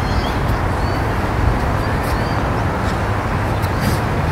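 Wind buffeting the microphone: a steady low rumble with hiss over it.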